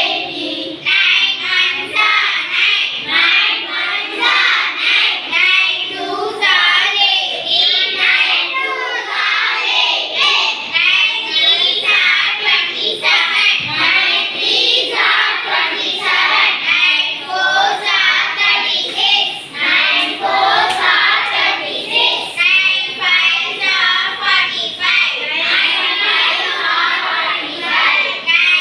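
Children chanting a multiplication table in unison, in a steady sing-song rhythm.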